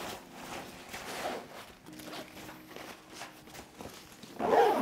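Rustling and handling of nylon backpacks (X-Pac and Cordura ripstop) as a load of gear pouches is moved from one bag into the other, with a louder rustle near the end.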